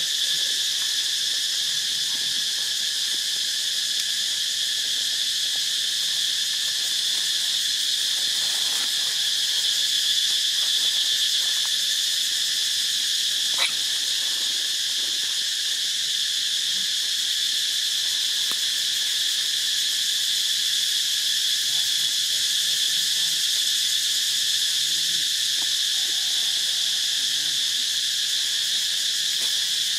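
Steady, unbroken drone of an insect chorus, high-pitched and even throughout, with one brief click near the middle.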